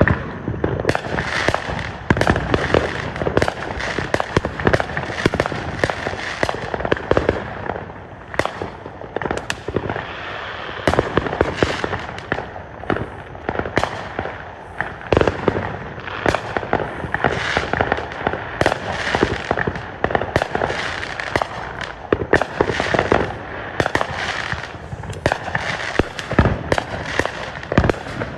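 Fireworks going off in quick succession: a dense, continuous barrage of bangs and crackling with no pause, typical of a show's finale.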